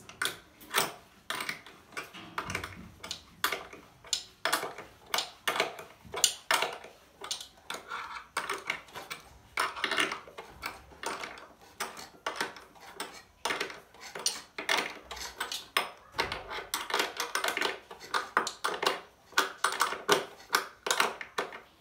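14 mm spanner clicking and clinking against the mounting nuts and bracket of a sewing machine clutch motor as the nuts are tightened, in quick, irregular metallic clicks.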